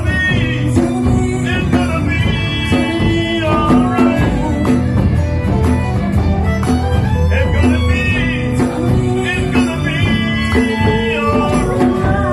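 A live music performance: a melody of held notes that slide between pitches, over a steady bass line and a regular percussive beat.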